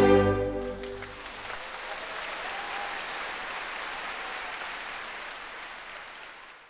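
Crowd applause, steady clapping that fades out near the end. The last notes of violin music die away in the first second.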